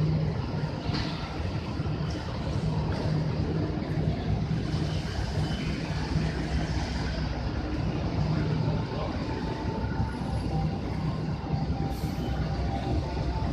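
Passenger coaches of a train rolling past close by on a station track: a steady rumble of wheels on rail with a constant low hum. Faint thin high tones join in from about two-thirds of the way through.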